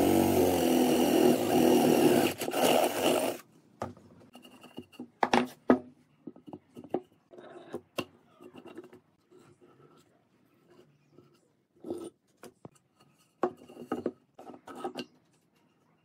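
Cordless drill running as it bores a hole into a wooden beam, stopping abruptly about three and a half seconds in. After that come scattered light knocks and clicks as a metal rod and ball bearing are handled and seated in the hole.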